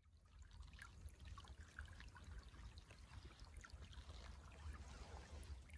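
Faint outdoor ambience in a snowy wetland: a light, uneven patter of tiny ticks over a steady low rumble.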